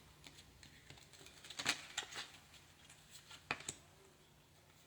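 A few soft flicks and taps of tarot cards being handled as two cards are drawn from the deck, in small groups about two seconds in and again later.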